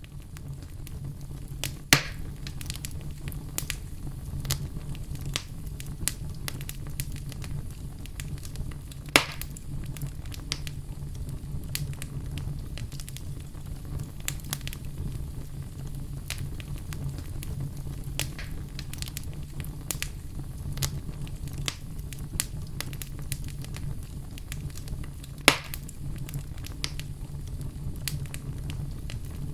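Fire burning in a fireplace: a steady low rumble of flames with constant small crackles. Three louder sharp pops stand out, about two seconds in, about nine seconds in, and a few seconds before the end.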